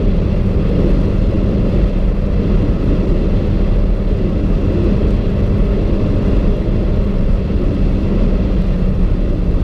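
Hyundai i30 N with an upgraded turbocharger running at high speed on a wet road: a loud, steady drone of engine, wind and tyre noise with no rise in pitch.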